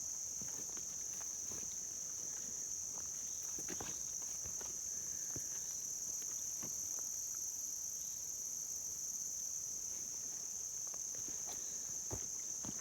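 Steady high-pitched chorus of insects such as crickets trilling in late-summer woods, with faint scattered footsteps and brushing through wet undergrowth.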